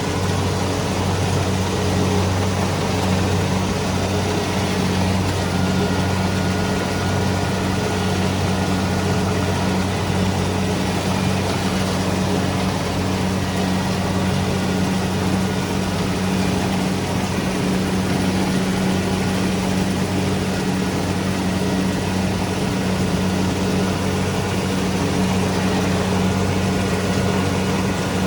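Kubota DC-70 Pro rice combine harvester's diesel engine running steadily, a constant low hum with a machinery clatter over it.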